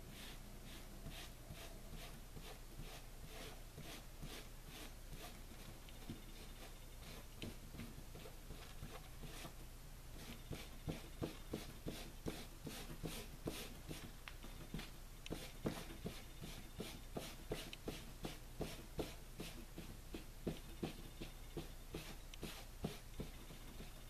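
Crumpled saran wrap loaded with paint dabbed repeatedly onto a painting board: light taps and crinkles, coming more often and louder from about ten seconds in, at roughly two a second.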